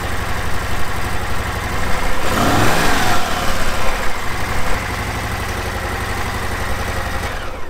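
Harley-Davidson Milwaukee-Eight 107 V-twin idling, revved once about two seconds in and settling back to a steady idle. It is being run into the 1,500–2,500 RPM range where it makes a slight pinging rattle from the heads, which the owner suspects is the rockers.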